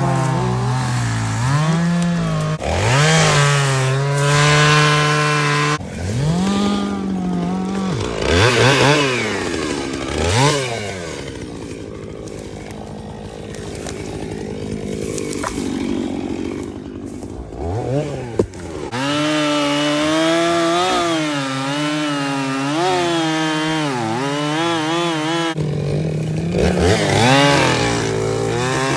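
Two-stroke chainsaw running at high revs and cutting firewood, its pitch repeatedly sagging under load in the cut and climbing again.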